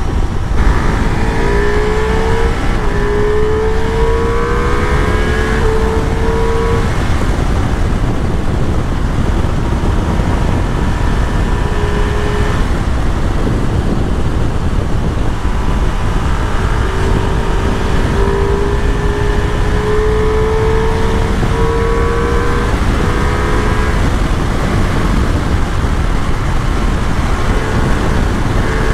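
Ducati Multistrada V4S's 1,158 cc V4 engine running at highway speed, about 130–140 km/h, under heavy wind rush on the microphone. Its engine note climbs slowly twice as the bike gathers speed.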